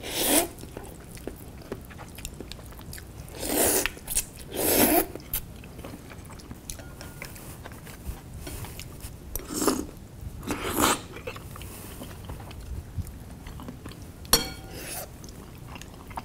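A man slurping ramen noodles and broth from a bowl: about six short, loud slurps a few seconds apart, with quieter chewing between them.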